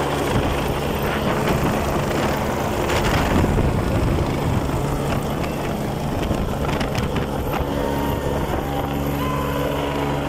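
Helicopter flying low overhead and moving off, its rotor and turbine engines running with a steady loud beating drone.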